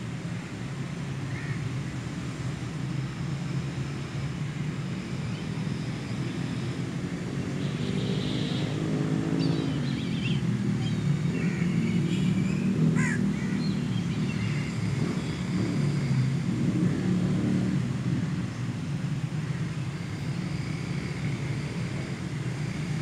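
Outdoor background: a steady low mechanical hum, like a distant engine, that swells louder through the middle. A few short bird calls sound over it, the clearest about eight to ten seconds in.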